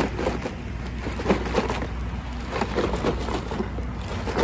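Plastic sheet or bag rustling and crinkling in irregular bursts as it is handled, over a steady low rumble.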